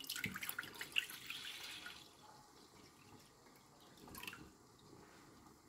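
Milk pouring from a plastic jug into a saucepan: a splashing stream, loudest in the first two seconds, that then dies away to a faint trickle.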